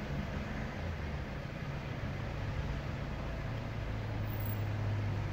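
A low, steady engine hum that grows louder about three and a half seconds in.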